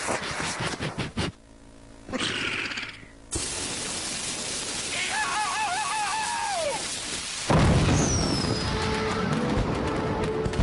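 Cartoon sound effects: a steady hiss while a larva character gives a wobbling, warbling cry that slides down, then a sudden loud firecracker explosion about seven and a half seconds in, running on with crackling and a falling whistle as music comes in.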